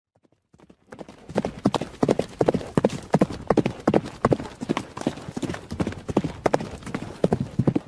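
Galloping horse hoofbeats: a fast, uneven run of thudding hoof strikes that builds up within the first second and keeps a steady galloping rhythm.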